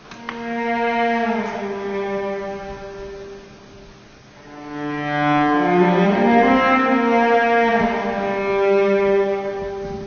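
Solo cello playing slow, long bowed notes in two phrases. The first swells and fades over about four seconds. The second comes in louder about halfway through, with several notes sounding together, and fades near the end.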